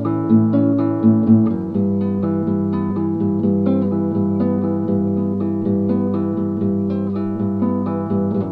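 Acoustic guitar music: plucked notes in a steady, even pattern, with the bass line shifting to a new chord about a second and a half in.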